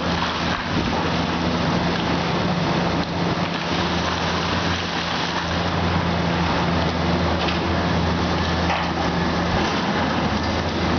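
Komatsu PC400 hydraulic excavator's six-cylinder diesel engine running steadily: a constant low engine note under an even rough noise with faint scattered clicks.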